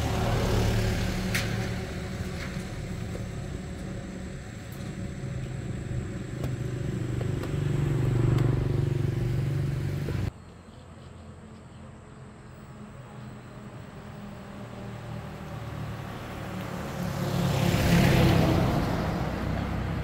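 Motor vehicles running past on a paved road. Engine noise swells about eight seconds in and cuts off abruptly about ten seconds in. Another vehicle then draws near and passes shortly before the end.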